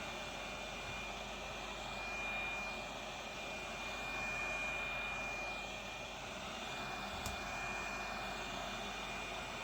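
Hot air rework station blowing steadily on the edges of a phone's plastic back cover: an even hiss with a steady high whine, swelling and easing a little as it works. A single small click about seven seconds in.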